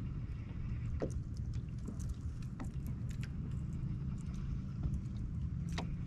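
Low steady rumble of a boat sitting on the water, with scattered light clicks and ticks from fishing tackle being handled.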